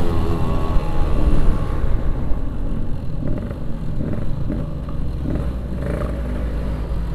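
Yamaha RX-King 135cc two-stroke motorcycle engine running on the road. Its pitch falls as it slows over the first two seconds, then it runs at lower, steadier revs.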